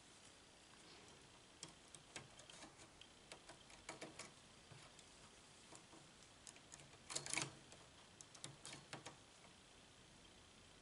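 Faint, irregular metal clicks of a hand transfer tool and the latch needles of a domestic knitting machine as stitches are moved onto the needles, with a louder brief cluster of clicks a little past the middle.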